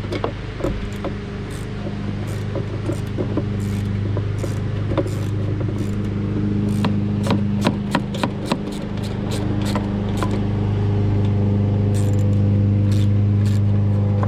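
Sharp clicks of a 10 mm ratchet wrench and metal parts being handled on a push mower, over a steady low machine hum that grows louder toward the end.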